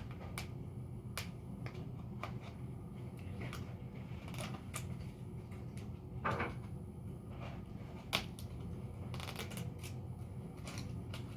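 Hands working at plastic toy packaging: scattered clicks and taps with short crinkling rustles, a few louder ones about four, six and eight seconds in.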